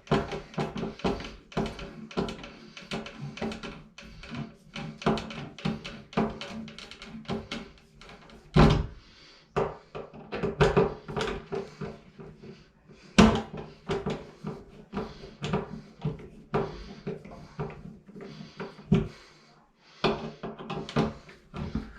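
Background music with frequent small knocks and clicks from hands working on an electrical outlet being wired. The two loudest knocks come about a third of the way in and just past the middle.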